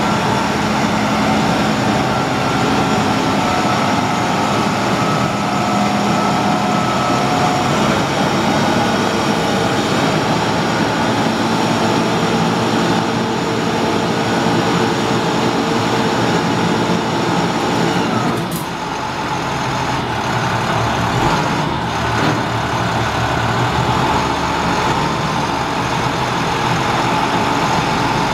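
International DT466 inline-six diesel in a medium-duty dump truck idling steadily while the hydraulic hoist raises the dump box. About two-thirds of the way in the sound dips briefly, with a sharp click.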